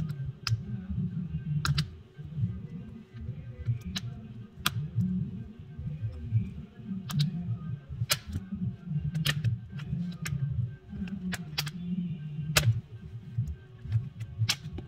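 Irregular sharp plastic clicks, a few a second at times, as a pry tool is worked around the seam of a Samsung Galaxy A04's back cover and its clips snap loose. Low background music runs underneath.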